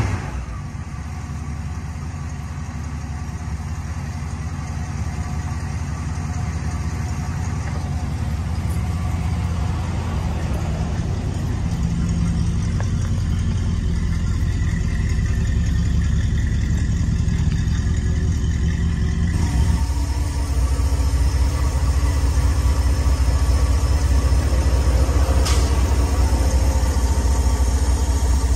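Ford V8 of a 1970 Ford Club Wagon van idling steadily. It grows louder from about two-thirds in, heard closer to the open engine cover.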